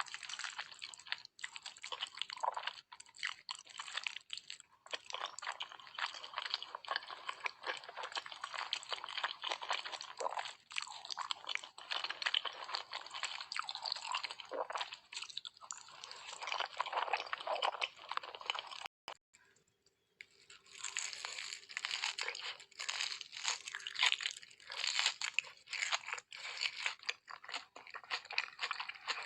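Close-miked eating: steady, irregular chewing and crunching of food in the mouth. The sound breaks off abruptly for about a second about two-thirds of the way through, then resumes.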